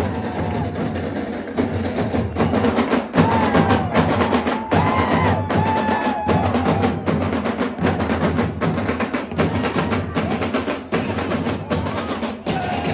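Music with a busy, driving percussion beat of drums and sharp knocking strikes, with a pitched melody line over it for a few seconds in the middle.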